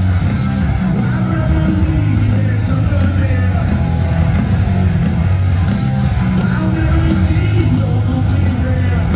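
Live rock band playing loud: distorted electric guitars, bass and drums in full swing, heard in a stadium.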